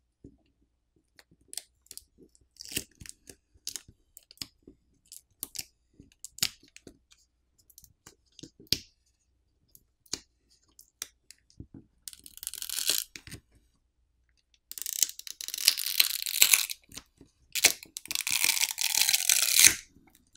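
Smartphone battery's adhesive tearing loose as the battery is pried up and pulled out by its pull tabs. The tearing comes in three stretches: a short one about twelve seconds in, then two longer, louder ones near the end. Before that there are scattered light clicks and taps of fingers and a tool on the phone.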